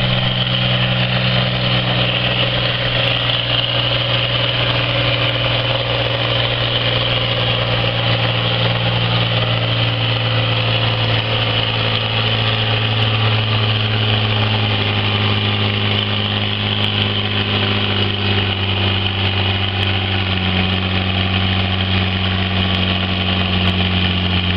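Diesel engine of a red farm tractor working under heavy load as it drags a weight-transfer sled, a loud steady deep drone whose pitch sags a little past the middle.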